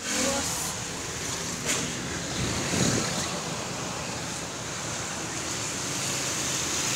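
Steady rushing noise of wind on a phone microphone, with street traffic behind it.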